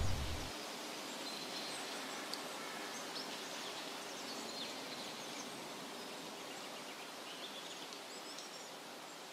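Faint outdoor ambience: a soft, steady hiss with scattered short, high chirps, slowly fading. A deep rumble stops about half a second in.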